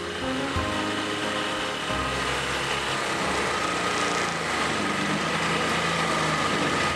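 Small engine running steadily, with a faint whine over it.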